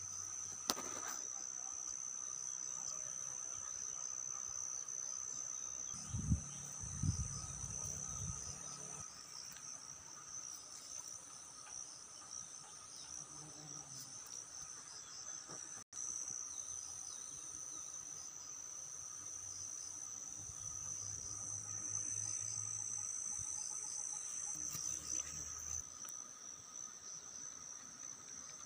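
Background insects trilling steadily at a high pitch, with a brief dropout about sixteen seconds in. A few low thumps come around six to eight seconds in.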